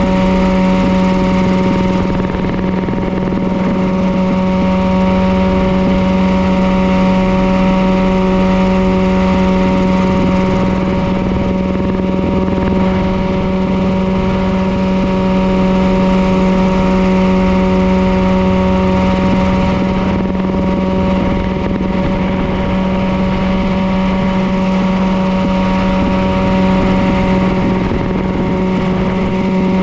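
Mirocopter SCH-2A coaxial ultralight helicopter in cruise flight, its engine and rotors running steadily. The drone is constant, with a strong low hum and several steady higher tones over a rushing haze, heard from the open seat.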